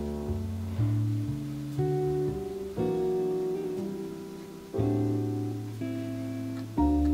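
Background music: a slow, plucked guitar-like piece, with new notes and chords struck every second or two and left ringing.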